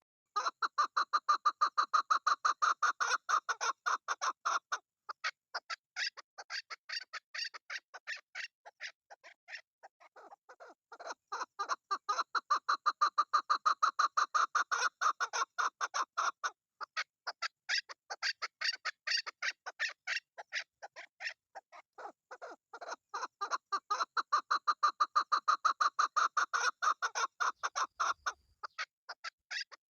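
Chukar partridge calling: long runs of rapid, repeated chuck notes, several a second. The calls swell louder in three bouts, with quieter stretches between.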